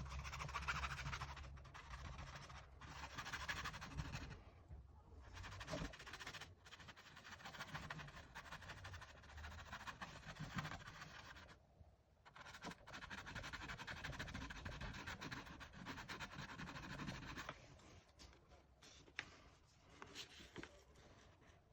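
Paintbrush scratching on canvas in long runs of strokes, broken by two short pauses, then fading to a few light taps near the end.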